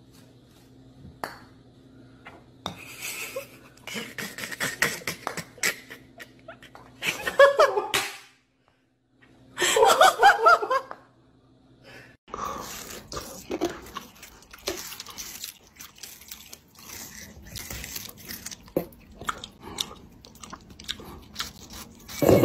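A person laughing in two loud bursts, about seven and ten seconds in, after a few soft knocks. From about twelve seconds on comes a run of small irregular clicks and smacks of chewing.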